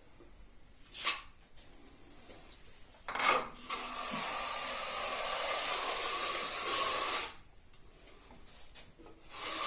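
Steel trowel scraping joint filler across plasterboard joints: a few short strokes, then one long steady scrape in the middle and another stroke near the end.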